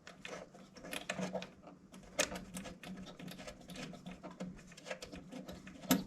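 Irregular light clicks and scrapes of hand work on a furnace inducer motor's mounting, as its screws are handled and started by hand, over a faint steady hum.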